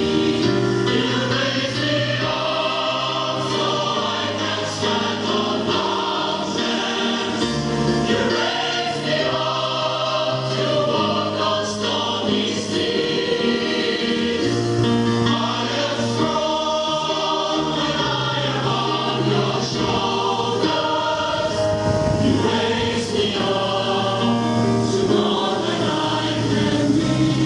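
A choir singing sacred music, with long held notes over a steady low line.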